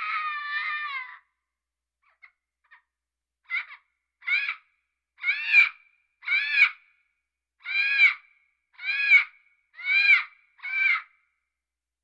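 Parrot calling: one long wavering squawk, then after a pause a run of eight short, arching calls at about one a second.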